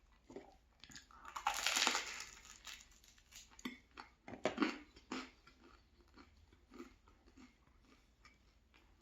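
Close-miked chewing of crunchy food. A loud crunching bite comes about one and a half seconds in, a few more crunches follow around the middle, then softer chewing.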